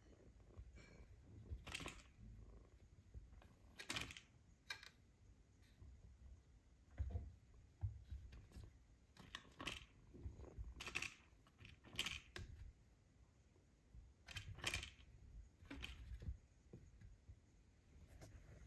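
Irregular clicks, taps and scratches of a kitten's paws and claws on a plastic mouse-chase cat toy and its scratch-pad top, with a few soft low thumps.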